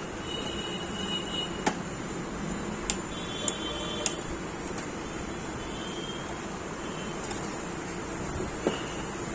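Steady background hiss and low hum with five sharp clicks or taps scattered through it, three of them close together a few seconds in.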